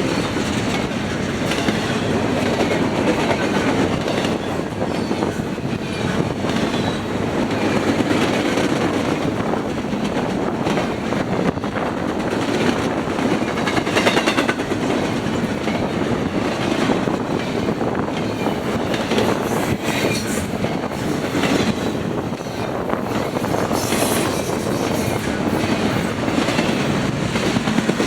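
Freight train cars rolling past at close range: a steady rumble of wheels on rail with the clickety-clack of wheels crossing rail joints.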